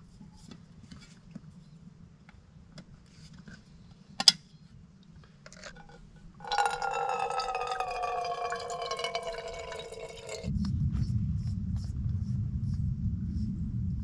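Water poured from a bottle into a camp pot or mug for about four seconds, its tone slowly falling as the bottle empties, after a few small clicks and one sharp clink. It is followed by a steady low rushing for about four seconds.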